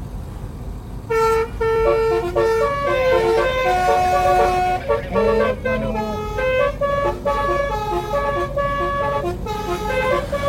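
Multi-tone telolet car horn playing a quick tune of stepped notes, several pitches sounding together, over a low rumble. The tune starts about a second in.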